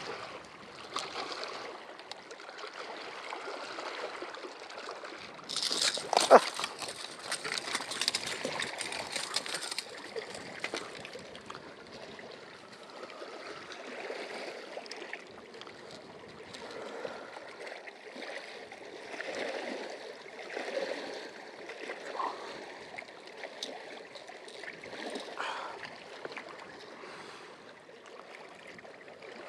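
Choppy lake water lapping and splashing against a rocky shoreline in strong wind. A louder rush of noise comes about five seconds in and lasts a few seconds.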